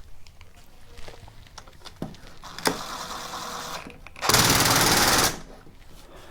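A power tool run in two short bursts, the second louder, each with a rapid rattle.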